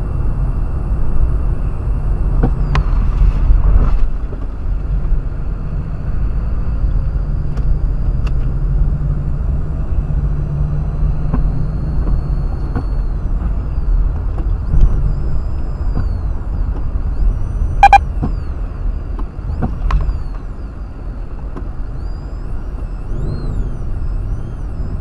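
Road and engine noise inside a moving car, picked up by a dashcam's microphone: a steady low rumble. A few sharp knocks cut through it, the loudest a clack about three-quarters of the way through.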